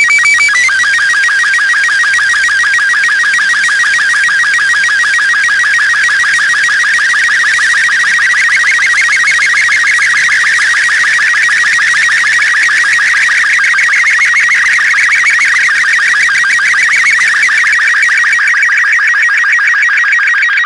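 Slow-scan television (SSTV) radio signal: a few short steady tones at the start, then a fast, even electronic warble that carries on without a break as the picture is sent.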